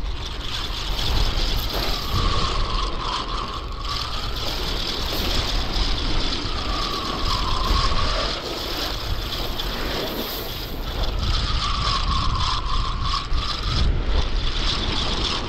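Fixed-spool fishing reel being wound in under the load of a hooked fish, its gears whining in three spells of about two seconds each, over steady wind rumble on the microphone.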